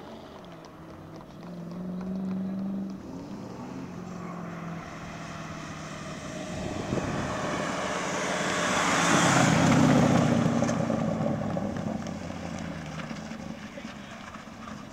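Drift car engine revving up and down as the car slides, growing louder to a pass close by about nine seconds in, with tyre noise from the slide, then fading away.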